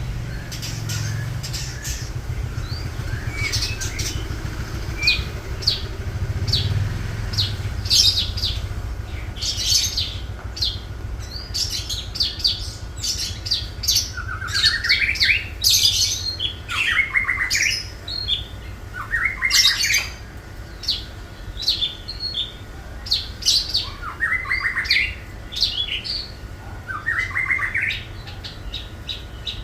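Long-tailed shrike (cendet) singing a varied mimicry song: a run of sharp, high chirps and call notes, broken about five times by short, quick trilled phrases that climb in pitch.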